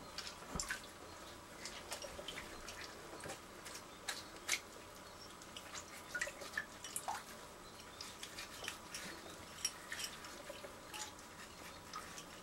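Water dripping and splashing lightly in a bathroom sink while plastic Rubik's-type cube pieces are scrubbed with a sponge in soapy water. It comes as irregular small clicks and drips over a faint hiss.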